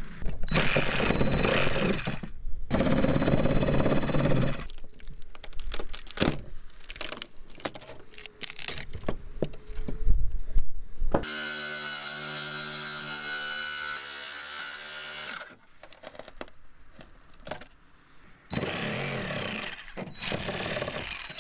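Power saws cutting a rotten plywood boat deck in sustained bursts, a circular saw and a jigsaw, with sharp knocks and cracks as rotten wood is pried and chiseled out of the hole. A steady humming tone runs for a few seconds about midway.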